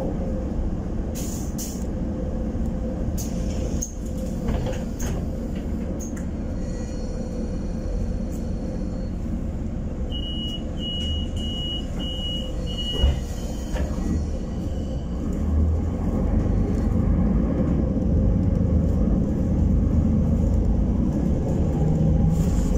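Solaris Urbino 12 city bus heard from inside, its engine rumbling steadily at a standstill with a few clicks. About ten seconds in come five short high beeps, typical of the door-closing warning. Then the engine grows louder as the bus pulls away.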